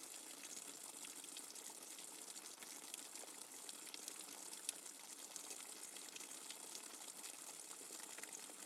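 Rainwater dripping fast and hard: a steady hiss of falling water scattered with many quick, sharp drip ticks.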